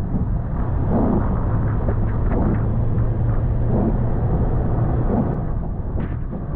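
Toyota FJ Cruiser's 4.0-litre V6 and drivetrain running at low speed in four-wheel drive on a rough trail: a steady low rumble with an even hum that fades a little near the end.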